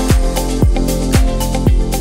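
Background music: an electronic dance track with a steady kick drum about twice a second and hi-hats.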